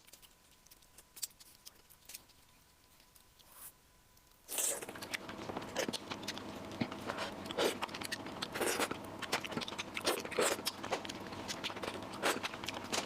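A person eating close to the microphone. The first few seconds are quiet apart from a few small clicks. From about four and a half seconds in, a steady background hiss begins, with frequent short, sharp clicks of biting and chewing.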